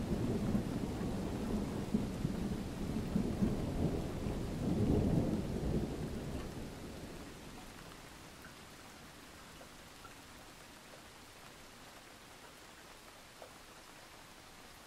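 A loud low rumble with a crackly texture, swelling about five seconds in and dying away by about eight seconds, leaving a faint steady hiss of rain.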